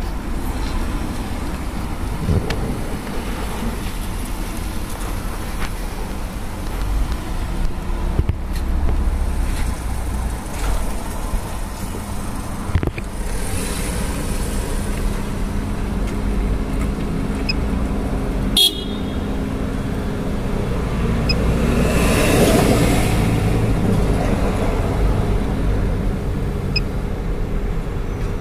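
Road traffic: vehicles running and passing, with a steady low engine rumble, a passing vehicle swelling louder about two-thirds of the way through, and one sharp knock just before it.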